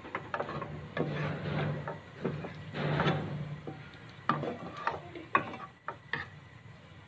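A spatula scraping and stirring chicken pieces around a nonstick frying pan in irregular strokes, with a few sharp clicks, while the liquid the chicken released is cooked off.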